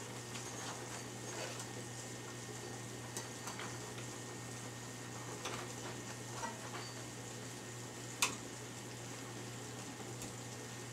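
Faint clicks and light handling noise as a bowstring is fitted back onto a bow, over a steady low electrical hum. One sharper click comes about eight seconds in.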